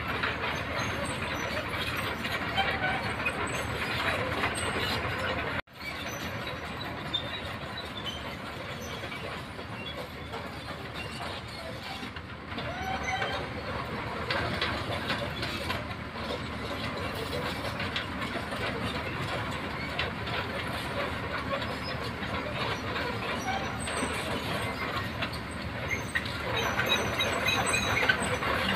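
Hydraulic crawler excavator working: engine running steadily under a continuous clanking and rattling of its steel tracks and machinery. The sound drops out for an instant about six seconds in.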